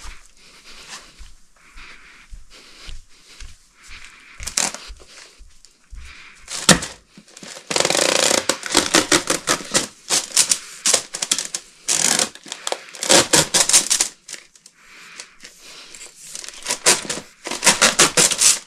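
Handling noise: scattered clicks at first, then from about halfway through a dense run of rapid clicking, crinkling and scraping.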